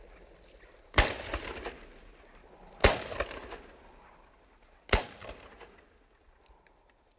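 Three shotgun shots, about two seconds apart, each trailing off in an echo.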